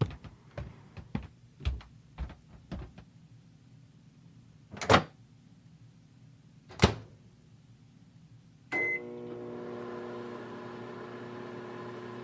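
A run of soft taps, then two louder sharp knocks. About nine seconds in, a microwave oven gives a short beep and starts running with a steady hum, warming water for a hot water bottle.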